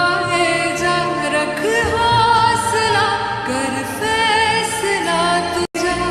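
Background music: a sung melody over instruments, breaking off for a moment near the end.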